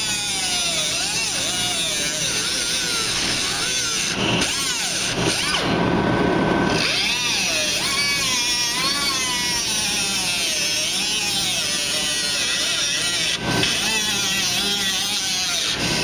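Cutoff wheel cutting through the rusted sheet-metal rocker panel of a Chevy Silverado, its whine rising and falling in pitch as it bites into the metal and dipping lower for a while near the middle. The owner says the cutoff tool is starting to give out.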